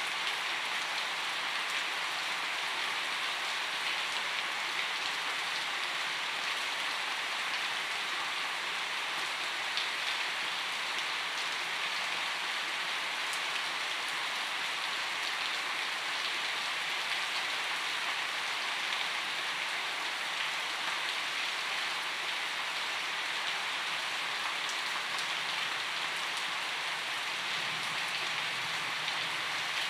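Gentle rain falling steadily: an even hiss with scattered faint drop ticks.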